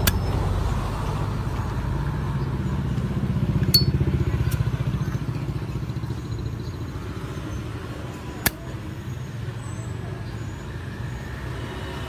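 Solid-brass Zippo lighter's lid clicking open and snapping shut, giving a few sharp metallic clicks about four seconds in and one louder click later on. Under them runs a steady low rumble of road traffic that swells a few seconds in.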